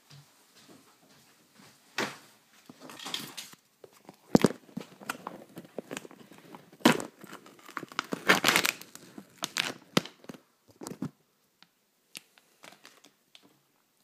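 Plastic packaging crinkling and tearing in irregular bursts, with scattered sharp clicks and knocks, as a self-heating meal pack is opened. The sound dies down to a few faint clicks about three seconds before the end.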